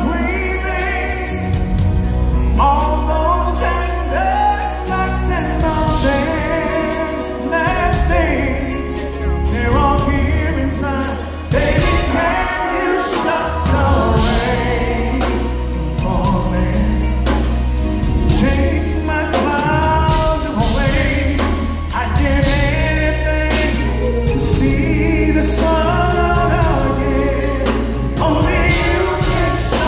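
Live band playing a slow R&B ballad with lead and backing vocals: a drum kit played with bundled rods, congas, keyboards and electric bass under the singing.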